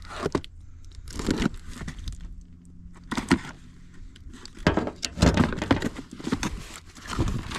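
Packaging of a power-tool kit being handled and opened: irregular crinkling and rustling, with a busier stretch of handling from about five seconds in.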